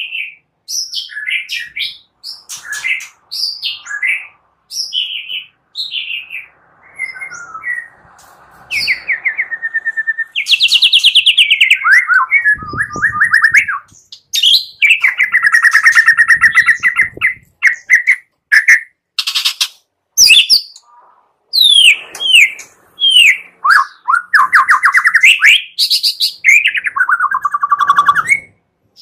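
White-rumped shama (murai batu) singing a fast, varied song of whistles, sliding notes and chirps, with harsh rattling 'kretek' notes in the middle of the run.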